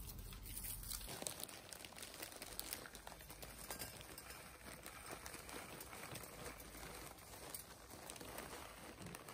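Plastic bag of potting soil crinkling and rustling while the soil is tipped and shaken out of it into a planter, a faint continuous rustle full of small ticks.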